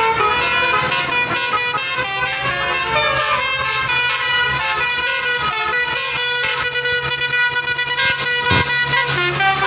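Bus telolet horn, a multi-trumpet musical air horn of the Basuri V3 type, playing a tune of changing notes with hardly a break.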